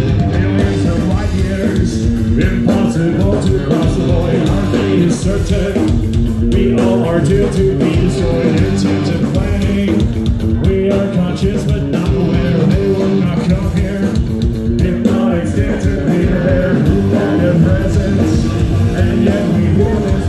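Live metal band playing loudly, with electric guitars, bass and drums driving a steady beat and a singer's vocals over them.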